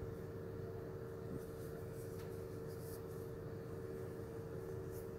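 Faint steady electrical hum with a low rumble underneath, and a few light ticks.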